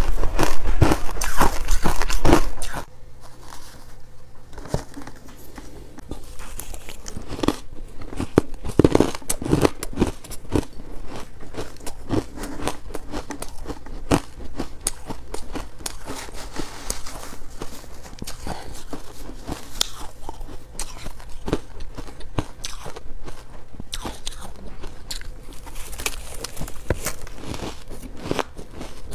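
Close-miked biting and chewing of hard frozen ice. Loud, dense crunching of buckwheat-coated ice chunks for the first few seconds, then quieter, scattered crunches of spoonfuls of frosty freezer ice.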